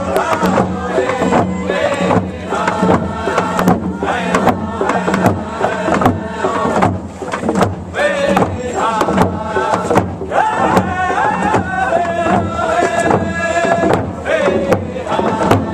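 Men singing a traditional Native American round dance song in a group, with a steady beat under the voices.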